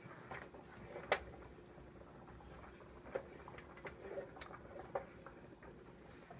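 A spoon clicking and scraping against a metal pan while stirring a flour-and-broth sauce as it heats, with scattered light taps over a faint steady background.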